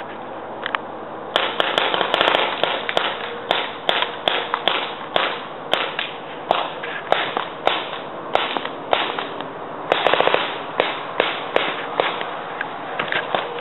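Paintball guns firing in a woodland game: rapid strings of sharp pops about a second and a half in and again around ten seconds in, with single shots in between.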